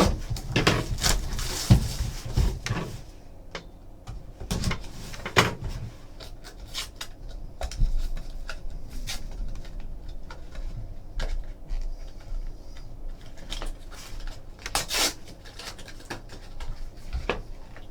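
Handling noises from opening a trading-card box and its contents: rustling and scraping of packaging, denser in the first few seconds, then scattered light clicks and knocks.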